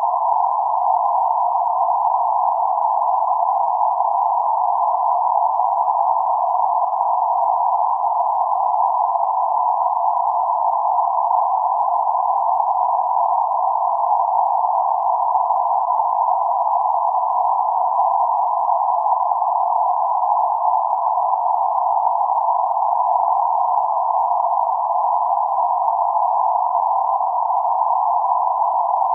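Synthesized band-limited noise centred on 848 Hz, an even, steady mid-pitched hush with no deep or high parts, unchanging throughout.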